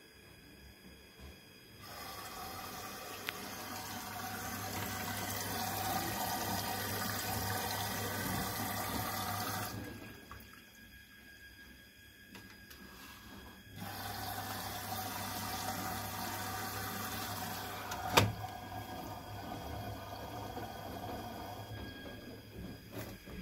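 LG Inverter Direct Drive front-loading washer dryer filling with water, a steady rush of water through the inlet in two spells that stops for about four seconds in between. A single sharp knock comes about three-quarters of the way through.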